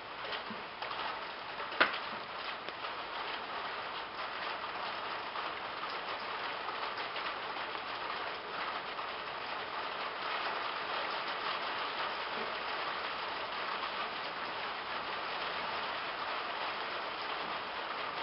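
Steady patter of light rain, many small ticks over an even hiss, with one sharp click about two seconds in.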